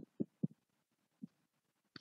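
About five short, soft low thumps spaced irregularly, with near silence between them.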